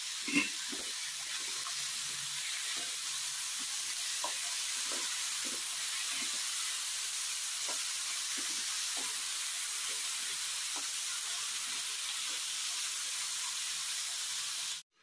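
Diced potatoes frying in hot oil in a kadai: a steady sizzling hiss, with light knocks and scrapes of a wooden spatula stirring them and a sharper knock about half a second in. The sound cuts off suddenly near the end.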